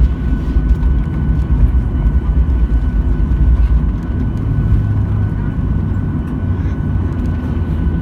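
Boeing 737-800 CFM56-7B jet engines and airflow heard inside the cabin, a steady loud low rumble with a thin steady whine above it. The low hum swells a little about halfway through.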